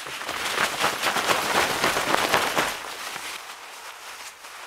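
Crinkly rustling and crackling of frost-coated nylon tent fabric as it is handled, loudest in the middle and dying down near the end.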